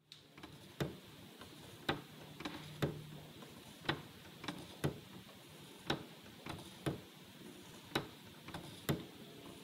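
Wooden skeleton clock, the 1985 Kastner Woodcraft Phoenix kit, ticking: its wooden escapement gives a sharp tick about once a second, with fainter clicks in between.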